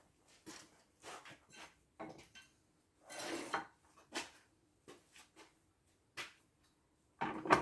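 Metal tools and parts clinking and clattering as they are handled: a string of short knocks and scrapes, with a longer scrape about three seconds in and the loudest knock near the end.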